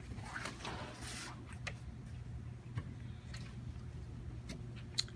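Faint handling noises from work on a fabric-wrapped acoustic panel: a few light scattered ticks and a brief rustle about a second in, over a steady low hum.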